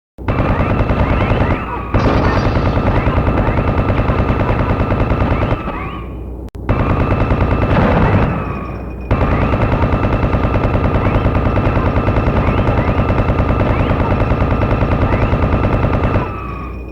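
Rapid automatic gunfire in long continuous bursts, very fast shots merging into a rattle with a steady high ring over it, broken by short pauses about 2, 6 and 9 seconds in.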